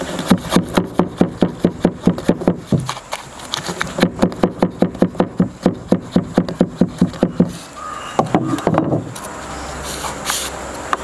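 Rapid tapping of a wooden tool handle pounding the folded newspaper base of a paper seed pot, formed over a cardboard tube, down against a wooden table to press it tight. The taps come about five a second in two runs with a short pause between them, and stop about three-quarters of the way through.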